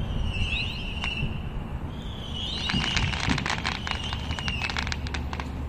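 Neighbourhood fireworks crackling: a dense run of sharp pops starts about three seconds in and lasts a couple of seconds, over a high whistling tone that rises and wavers.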